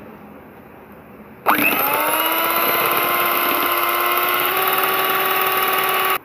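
Electric hand mixer (Scarlett) switched on about a second and a half in, its motor spinning up with a rising whine and then running steadily as the beaters whisk two eggs in a plastic bowl; it cuts off suddenly at the end.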